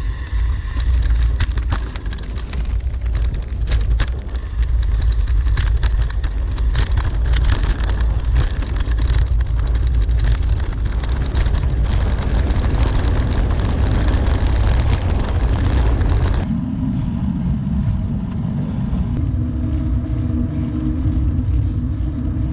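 Wind rushing over a handlebar-mounted action camera on a moving bicycle, with frequent knocks and rattles as the bike rolls over rough trail and gravel. About sixteen seconds in the sound changes abruptly to a smoother, steadier rumble.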